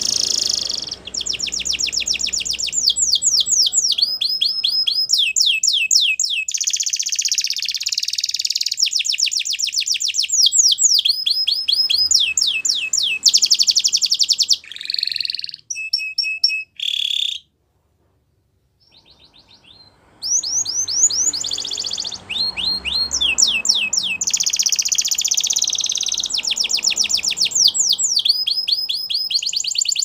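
Domestic canary singing: long rolling runs of fast repeated high notes, with a few short piercing notes and a pause of about two seconds a little past the middle before the runs start again.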